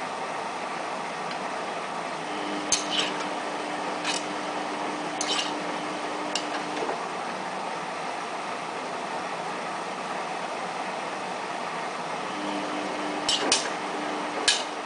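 Samsung WF8804RPA front-loading washing machine in its first rinse. The drum motor hums as the drum turns for about four seconds, stops, then starts again near the end, over a steady hiss. Sharp clinks come every second or so while the drum turns.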